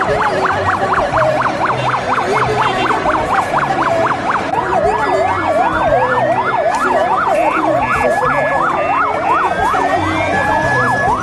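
Electronic vehicle sirens yelping, with fast rising-and-falling sweeps, several overlapping; after about four seconds a slower sweep joins in. Short, higher steady tones sound now and then.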